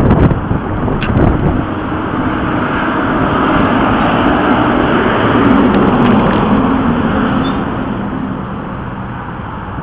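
Road traffic: a passing vehicle, its noise swelling to a peak about midway and fading again.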